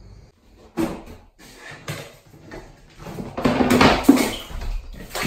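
A knock and some clattering in a small bathroom, then from about three seconds in a louder steady rush of water, as at a bathtub.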